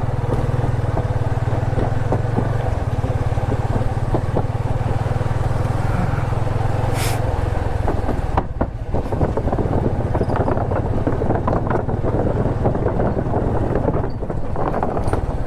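Motorcycle engine running steadily at low speed as the bike rolls over a wooden-plank bridge deck. The boards knock and clatter under the tyres, densely from about halfway through.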